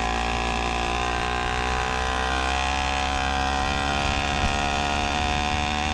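Small motorized-bicycle engine running steadily at an even speed.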